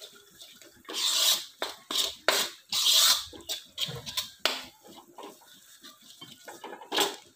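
Metal spatula scraping and stirring a thick spice paste around a metal kadhai in several strokes, with sharp scrapes and clicks against the pan; the ground spices are being fried in oil.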